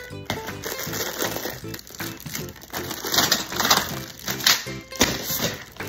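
Upbeat background music throughout. From about halfway in, loud crinkling and rustling of plastic sheeting as the clear plastic greenhouse cover is pulled and handled.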